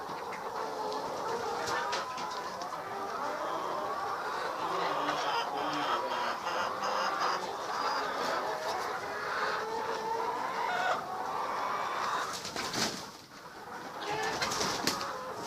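A flock of chickens clucking and calling continuously, many birds overlapping, briefly quieter near the end.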